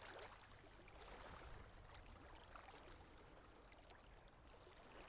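Near silence: a faint, even hiss like trickling water, with a few soft ticks.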